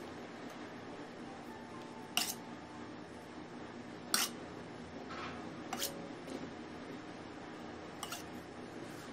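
Four sharp clicks and taps of a metal cake scraper and other decorating tools handled against hard kitchen surfaces, spaced about two seconds apart, over a steady low room hum.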